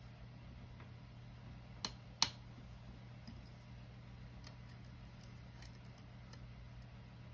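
A lock pick and tension tool working a Mul-T-Lock Junior cylinder: faint ticks and scrapes of the pick on the pins, with two sharper clicks about two seconds in, over a steady low hum.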